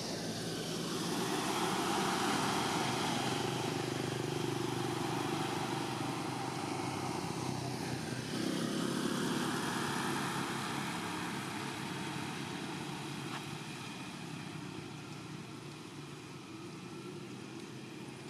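Passing motor vehicle engine noise. It swells about two seconds in and again around nine seconds, then slowly fades.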